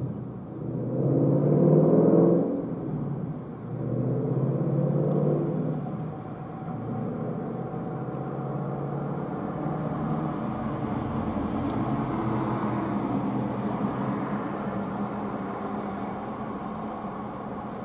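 Car engine running close by, with a steady low hum that swells louder twice in the first few seconds before settling.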